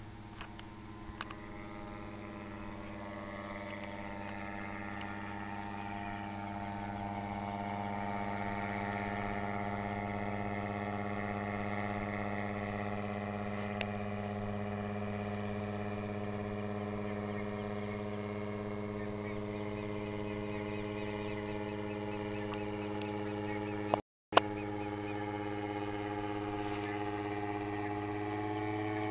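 Paramotor engine droning steadily as it flies overhead, growing louder over the first several seconds. The sound cuts out briefly with a click late on.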